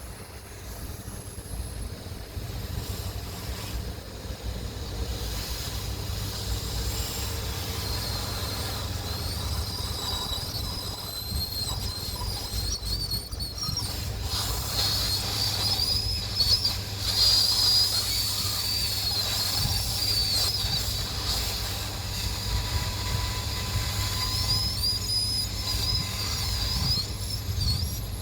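Hot-air rework gun blowing on the connector: a steady hiss over a low hum, with a wavering high whistle from about eight seconds in.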